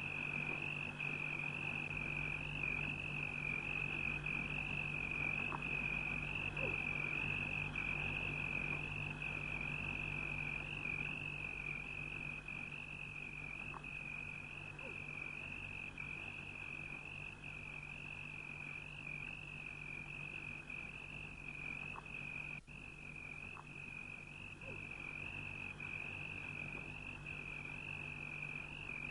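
Continuous high-pitched trilling of a nightime animal chorus, held at one steady pitch and wavering slightly, over a low steady hum.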